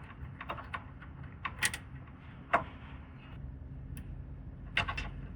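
Scattered light clicks and taps of a screwdriver and a loose screw being handled while a circuit board is taken out of a drum machine. The clicks are irregular, with the sharpest about two and a half seconds in and a small cluster near the end.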